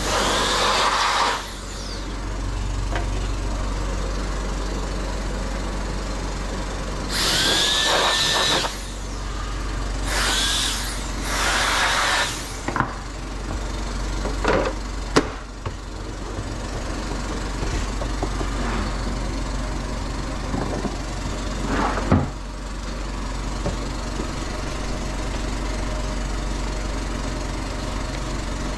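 Repair-bench work over a steady low hum: several rasping, hissing bursts of a second or two, some with a brief gliding whistle, and a few sharp clicks.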